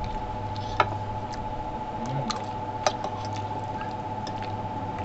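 Wet chewing and sucking of stewed chicken feet eaten by hand, with a few sharp clicks of a fork against a glass bowl, over a steady background hum.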